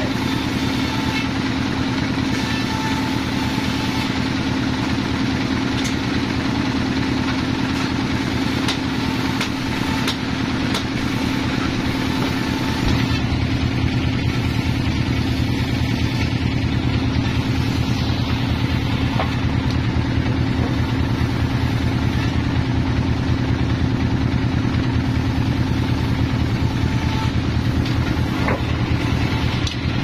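Band sawmill running idle, a steady mechanical hum with a strong low drone, the blade not yet in the log. About 13 seconds in it grows a little louder and deeper, and a few faint knocks come from the log being handled on the carriage.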